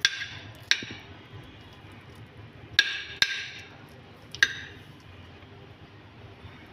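Metal spoon clinking against a ceramic dinner plate five times while scooping food, each clink sharp with a short ring.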